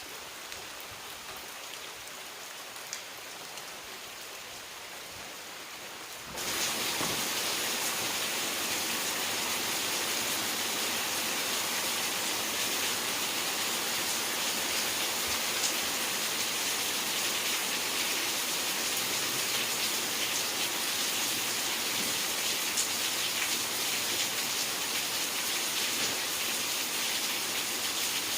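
Steady rain falling, with many small drop impacts. About six seconds in it jumps abruptly louder and stays so.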